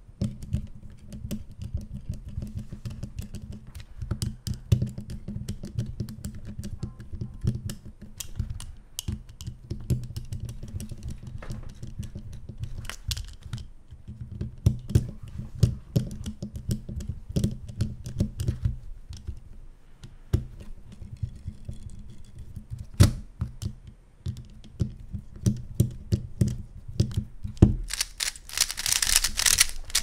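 Irregular plastic clicking and clattering from a screwdriver working the centre screws of a YuXin Little Magic 3x3 speed cube, tightening the spring tension, with the cube's pieces knocking as it is handled. Near the end a quick burst of hissing clatter as the cube's layers are turned to test the tension.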